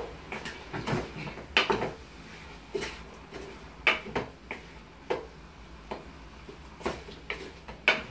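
A spoon scraping and knocking against a metal cooking pot as chicken pieces are stirred, in irregular strokes about once a second.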